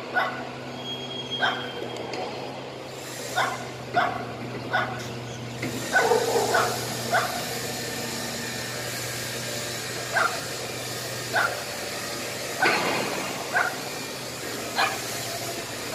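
Small street dogs barking at a toy lion on a remote-control car: about a dozen short single barks, spaced irregularly a second or more apart, over a steady low hum.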